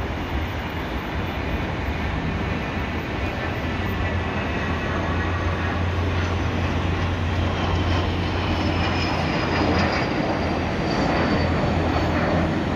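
Learjet 35A business jet's twin Garrett TFE731 turbofans at takeoff power during the climb-out: a steady jet noise that grows slightly louder. In the second half a thin whine falls in pitch.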